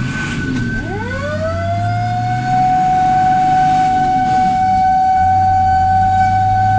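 Fire engine siren winding up in pitch about a second in and then holding a steady tone, heard from on board the responding truck, with the truck's engine running underneath.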